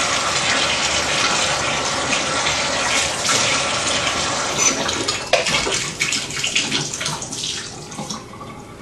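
Tap water running and splashing into a plastic terrarium as it is rinsed of bleach. The steady rush breaks up about five seconds in into separate splashes and drips, then fades.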